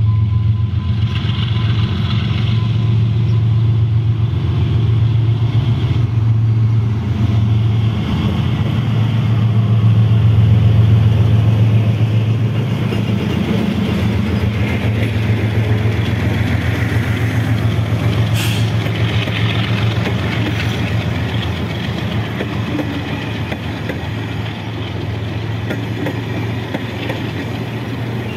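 Double-headed GE and Henschel diesel-electric locomotives passing close under power: a heavy, steady diesel engine drone that is loudest about a third of the way through and then eases as the coaches roll by. A brief sharp noise cuts through about two-thirds in.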